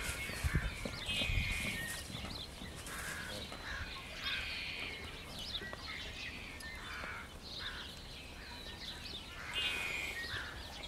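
Wild birds calling and chirping over and over, several calls overlapping, with a few dull low thuds in the first second and a half.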